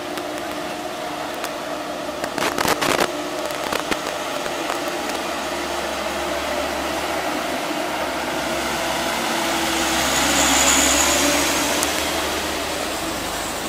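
Diesel engine of a light cargo truck rounding a hairpin bend and driving close past, growing louder to a peak about two-thirds of the way in, with a high hiss at the loudest point, then easing off. A few sharp clicks sound about two to three seconds in.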